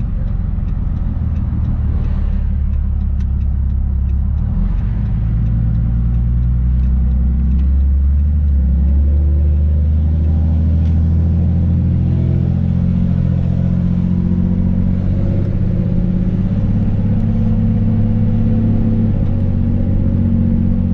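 Fourth-generation Dodge Ram's 6.7-litre Cummins straight-six turbodiesel heard from inside the cab while driving: a deep, steady drone through its newly fitted 10-inch exhaust tip. The engine note shifts a few times in the first eight seconds, then holds steady.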